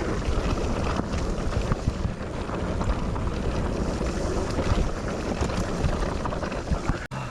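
Wind buffeting the microphone and rumbling trail noise while riding an electric mountain bike downhill, a steady rushing noise that cuts out for an instant near the end.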